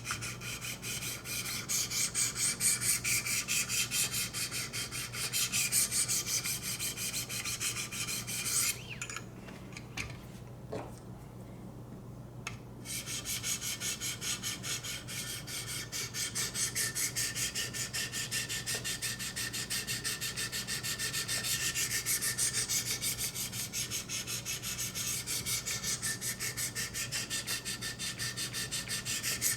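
A 600-grit sharpening stone stroked rapidly and lightly along the VG-10 steel blade of a Spyderco Impala, a steady scraping rhythm of quick, even strokes. The strokes stop for about four seconds around nine seconds in, then resume.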